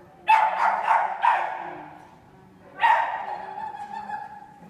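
A dog barking excitedly during an agility run: three quick barks about a second in, then one more bark near the end of the third second.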